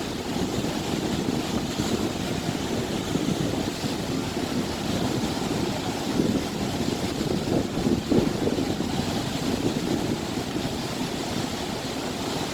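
Wind buffeting the microphone in uneven gusts over a steady rush of moving water.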